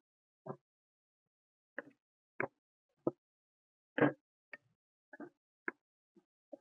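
A metal spatula knocking and scraping against a non-stick kadai as diced raw banana is stirred and turned: about ten short, separate clacks, the loudest about four seconds in.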